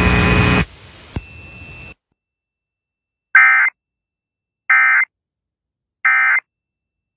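Emergency Alert System end-of-message signal: three short bursts of digital data tones, a little over a second apart, marking the close of the broadcast warning. Before them a steady electrical hum cuts off just under a second in.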